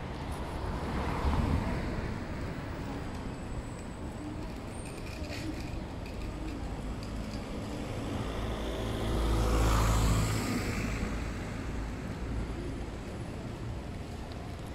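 City street traffic noise, with a motor vehicle passing close and loudest about ten seconds in.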